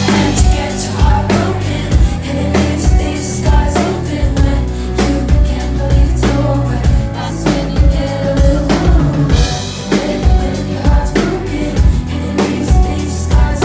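Live pop band playing a steady drum-kit beat with heavy bass and keyboards, and a woman singing over it.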